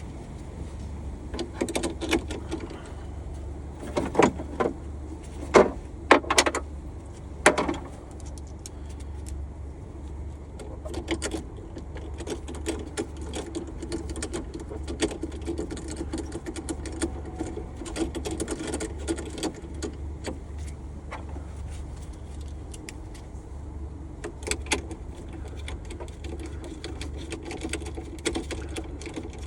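Hand tools working on the new battery overload fuse of a 2014 Audi A6: sharp metal clinks and knocks, the loudest about four to eight seconds in, then long runs of rapid light clicking. A steady low hum sits underneath.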